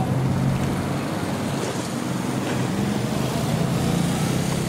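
Fukuoka City Subway 1000N series six-car electric train running along the track at a distance: a steady running noise with a low hum.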